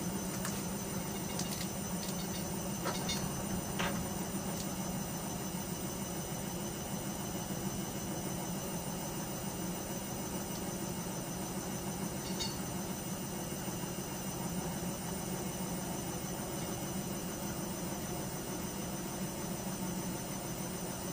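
Bauknecht GreenIntelligence Super Eco 6413 washing machine running its wash cycle: a steady motor hum with the drum turning. A few light clicks come in the first four seconds.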